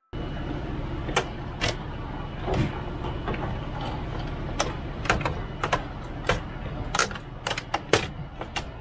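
Irregular sharp clicks and knocks, coming more often in the second half, as an old boat DC switch panel is handled and pulled out from its cabinet with its wiring. A steady low hum runs underneath.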